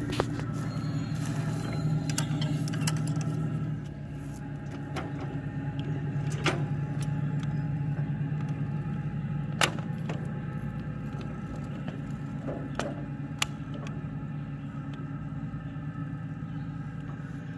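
Ride-on miniature railway train rolling over steel track: a steady low rumble with scattered sharp metallic clicks as the wheels cross rail joints and a spring switch.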